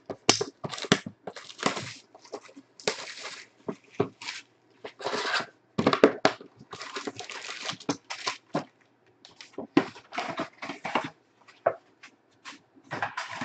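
Plastic shrink wrap crinkling and tearing as it is stripped off a box of trading cards, in irregular crackling bursts, followed by the rustle of foil card packs being lifted out of the box.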